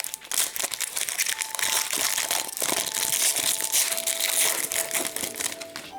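A hockey card pack's wrapper crinkling steadily as it is handled and opened.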